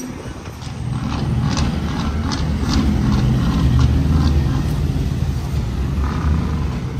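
Loaded dump truck's diesel engine running as it pulls away across a gravel yard, building in loudness over the first few seconds. A run of sharp clicks and rattles comes about one to three seconds in.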